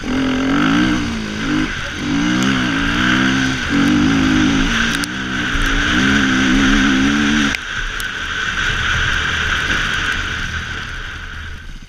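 Dirt bike engine running hard under throttle, its pitch climbing and dropping several times as it pulls through the gears. About seven and a half seconds in the throttle closes and the engine falls to a lower, quieter note.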